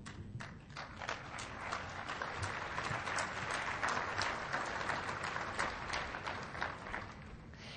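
Audience applauding, swelling over the first couple of seconds and dying away near the end.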